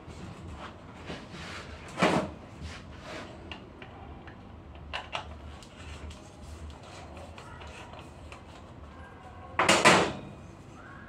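Parts of a Lavazza Espresso Point EP 2100 coffee machine being handled during disassembly: scattered clicks and knocks of metal and plastic pieces. There is a knock about two seconds in, two sharp clicks around five seconds, and the loudest brief clatter near the end.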